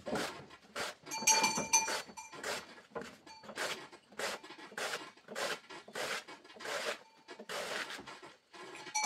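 Banana trunk being chopped into thin slices with a long-bladed knife on a wooden block: a steady run of chopping strokes, about two a second. A brief high ringing tone sounds about a second in and again at the very end.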